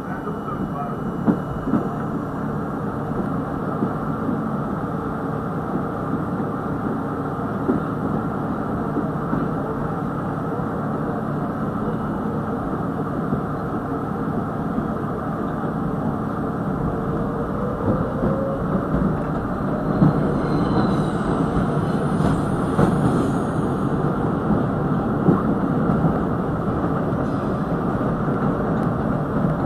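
R32 subway car running on elevated track: a steady rumble of wheels on rail, with occasional sharp clicks. A faint rising whine comes a little past halfway, and the running noise grows louder after that.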